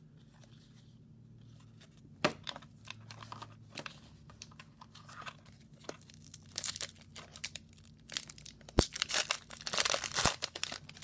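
Foil wrapper of an Upper Deck hockey card pack being torn open and crinkled by hand. Scattered crackles at first, then denser tearing and crinkling with a sharp snap in the last few seconds.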